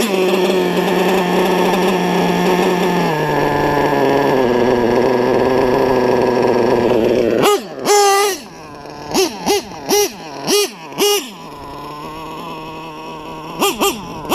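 LRP .32 nitro engine in an RC truck running at speed with a high, steady whine that steps down in pitch about three seconds in. About seven seconds in it drops to idle and is blipped in about eight quick rev-ups. The high-speed needle is set a bit lean, which the owner says has her screaming.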